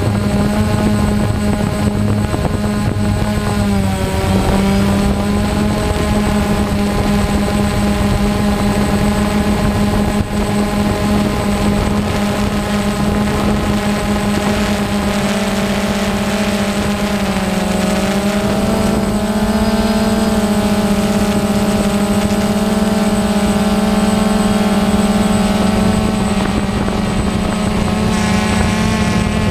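DJI Phantom quadcopter's motors and propellers running in flight: a steady whirring hum whose pitch dips and wavers briefly about four seconds in and again a little past halfway, as the motor speeds change.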